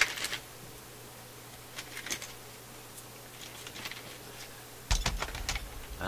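Small metal screws clicking against each other as they are handled from a plastic parts bag, in scattered short bursts. About five seconds in there is a louder handling knock with a low thump.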